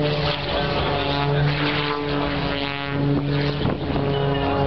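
Aerobatic biplane's piston engine and propeller droning steadily at one pitch as it flies a smoke-trailing manoeuvre.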